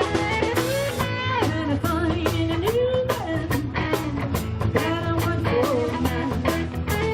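A live band playing a 1970s rock cover: guitar over a steady bass line and a regular drum beat, with a lead line sliding up and down in pitch.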